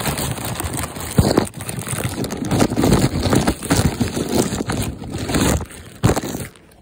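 Grey plastic bag rustling and crinkling right against the microphone as it is opened, with scraping and knocks from handling; the noise drops away near the end.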